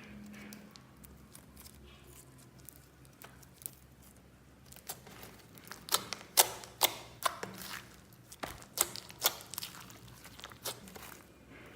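Slime being squeezed and pressed by hand. After a faint soft crackle, a run of sharp wet clicks and pops begins about halfway in and comes roughly twice a second.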